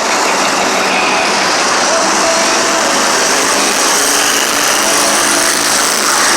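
Monster truck's supercharged V8 engine running loud and steady, in a dense wash of arena noise.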